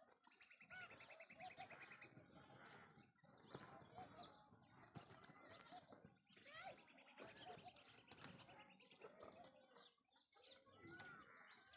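Faint chorus of small birds chirping and calling, with a rapid, buzzy trill near the start and again past the middle.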